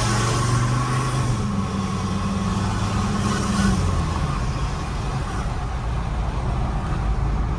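Ford Ranger 3.2 turbo diesel's inline five-cylinder running while driving, with the exhaust cutout open on a straight downpipe and side-exit exhaust, giving a deep exhaust drone. The steady drone eases about four seconds in to a lower rumble.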